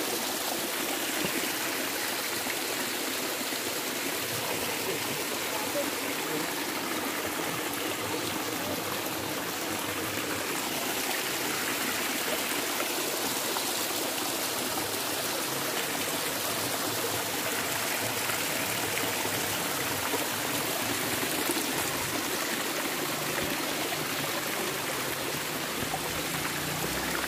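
Shallow mountain creek running down bare rock slabs, a steady rush of water.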